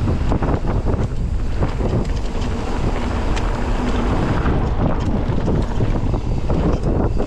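Wind buffeting the camera microphone of a mountain bike in motion, a steady low rumble with many small rattles and clicks from the bike over rough ground.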